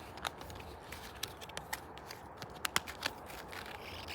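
Plastic cards being slid into the card pocket of a leather wallet: scattered soft clicks and scrapes of cards against leather and each other, the sharpest a little under three seconds in.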